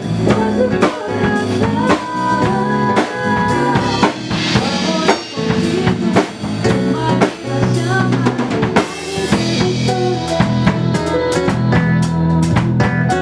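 Live band playing an instrumental passage: a drum kit with bass drum, snare and rimshots drives a steady beat under pitched instruments holding and moving between notes.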